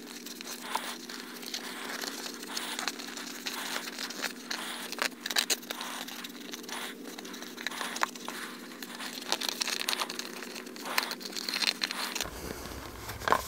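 Glue-coated leather sheet being handled and worked around a kydex holster shell: irregular crinkling and crackling from the tacky contact cement and leather. A faint steady hum runs underneath.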